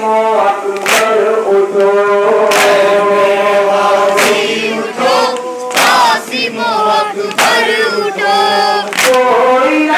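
Men's voices chanting a farewell noha (Shia mourning lament) in unison. Six sharp slaps of matam, hands striking chests together, keep time about every second and a half.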